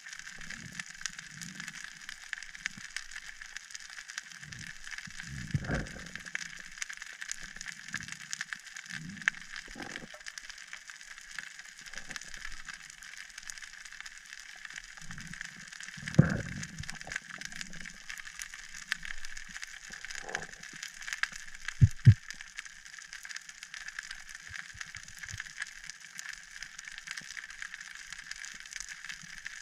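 Underwater ambience over a rocky seabed: a steady fizz of fine crackling clicks, with muffled low swooshes of water movement now and then. Two sharp knocks come about 22 seconds in.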